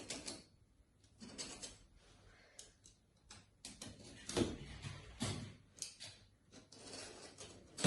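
Cardboard box being cut open with a knife and handled: irregular scraping and rustling with several dull knocks, the loudest a little past the middle.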